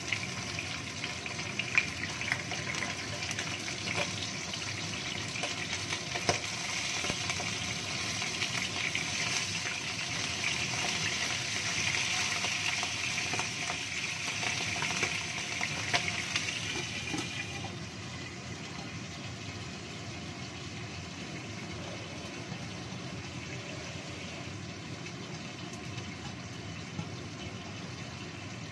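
Pieces of small shark sizzling and spattering in hot cooking oil in a wok as they are laid in one by one, with a few sharp taps. About two-thirds of the way through, the sizzle drops to a quieter, muffled hiss as the wok is covered with its lid.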